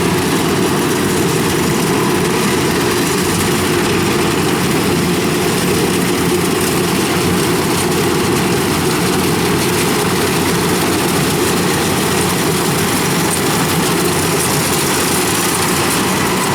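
Kubota combine harvester's diesel engine running steadily while it cuts rice: a loud, even drone that holds level throughout.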